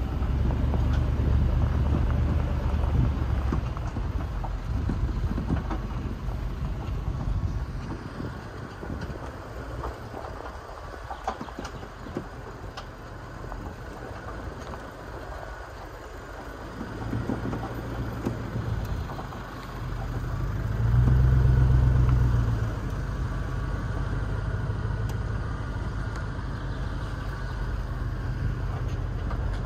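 Off-road SUV driving slowly along a dirt track: a low engine rumble with tyre and wind noise on an exterior-mounted microphone. The engine swells louder for a couple of seconds about two-thirds of the way through as the driver accelerates.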